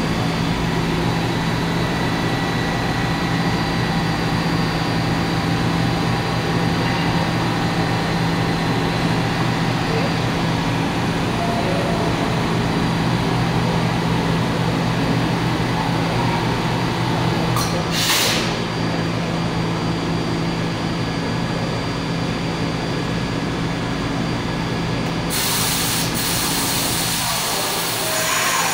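R68 subway train standing at the platform with a steady low hum from its idling equipment, broken by a short hiss of released air about two-thirds of the way through and a longer air hiss near the end.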